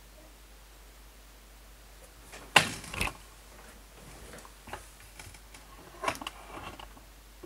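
Handling noise as the camera is picked up and moved over the desk. There is a sharp knock about two and a half seconds in, a second one just after, then a few lighter clicks and knocks.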